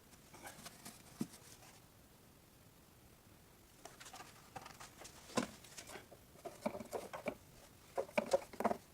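Scattered light taps, clicks and rustles of plastic oil bottles and a funnel being handled at an engine's oil filler neck, busier in the second half.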